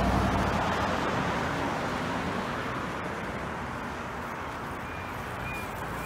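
A passing train, its noise loudest at first and fading over the next few seconds, with street traffic beneath.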